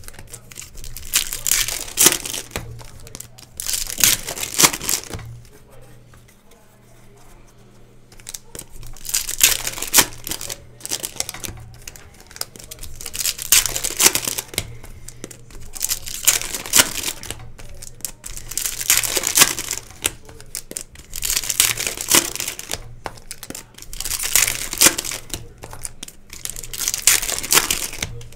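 Foil trading-card pack wrappers being torn open and crinkled, in repeated bursts of crackling a second or two long, with a quieter pause about five to eight seconds in.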